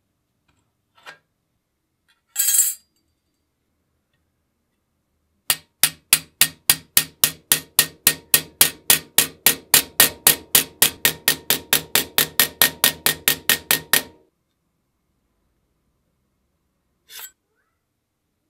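A hammer striking metal in a steady rapid series, about four blows a second for roughly nine seconds. Before it there is a short noisy scrape, and after it a single click.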